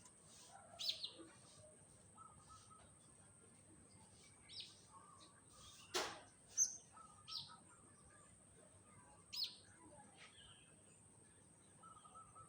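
Faint, short high bird chirps, about eight of them scattered at irregular intervals, over a steady thin high tone. A single sharp click about six seconds in is the loudest sound.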